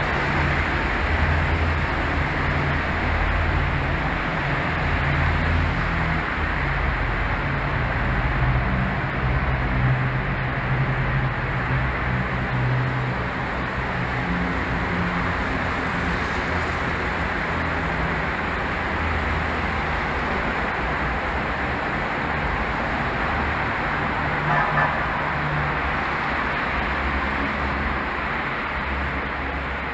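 Steady road traffic noise inside a road tunnel: passing car engines and tyres make a continuous low rumble under a loud hiss.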